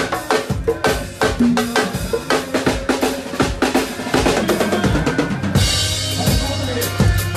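Live band percussion: congas, then sticks on drums in a rapid fill, and a cymbal crash about five and a half seconds in with a steady low bass note under it.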